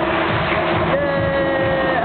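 Circus show music with a steady beat over crowd noise; about halfway through, one pitched note is held for about a second.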